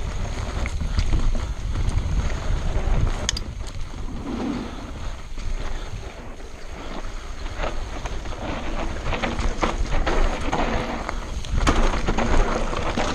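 Mountain bike descending a rough dirt singletrack: tyres running over dirt and loose stones, with frequent rattles and clicks from the bike over the bumps. Wind buffets the helmet-camera microphone as a steady low rumble.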